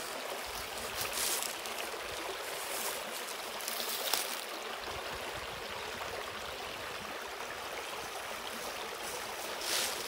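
Small woodland creek running over a low rocky waterfall: a steady rush of water, with a few brief louder swishes about one, three and four seconds in.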